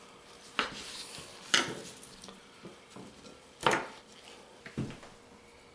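Kitchen knife cutting bread on a bamboo cutting board: several sharp knocks of the blade and handling against the wood, spaced a second or two apart, with the knife laid down on the board.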